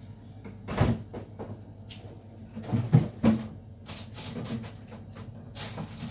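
Refrigerator door pulled open with a thump about a second in, followed by a few knocks and light rattling around three seconds in as things are handled inside the fridge.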